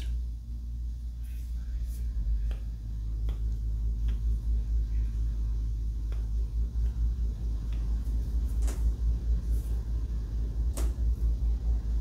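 A low, uneven rumble with a few faint clicks.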